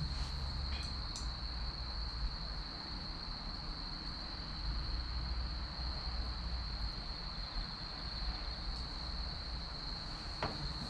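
Steady high-pitched cricket trill over a low rumble, with a few faint crackles from a burning wood fire, twice about a second in and once near the end.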